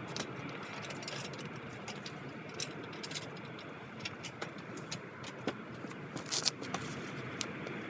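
Scattered light metallic clicks and clinks of tools and parts being handled, over a steady background hiss, with a few louder clicks close together about six seconds in.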